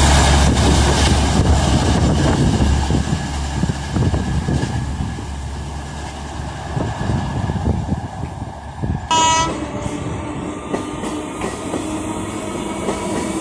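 Express train's coaches rumbling and clattering over the rails as they run past and recede, the sound fading over several seconds. About nine seconds in, a brief horn-like tone, then a distant approaching train with faint steady tones.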